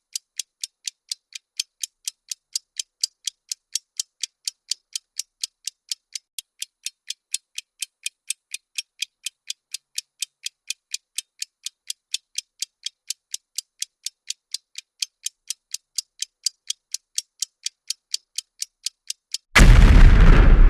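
Bomb-timer ticking sound effect: sharp, high-pitched ticks at about four a second. Near the end the ticking is cut off by a loud explosion sound effect with a deep rumble, the blast that marks the countdown running out.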